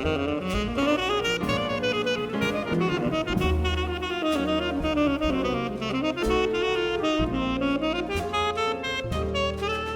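A jazz quintet playing, a saxophone carrying the melodic line over piano, bass and drum kit.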